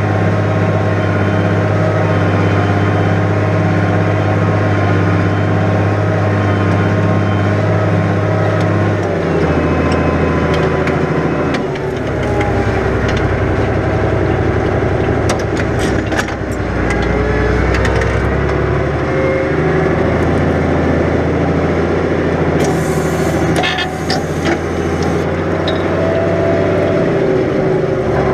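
New Holland 100-90 tractor's diesel engine running steadily under ploughing load. Its note drops about a third of the way in and shifts again shortly after, with scattered clanks and rattles later on.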